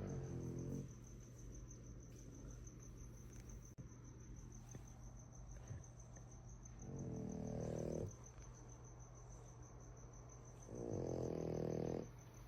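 French bulldog snoring in deep sleep: three snores about a second long, one at the start, one about seven seconds in and one about eleven seconds in.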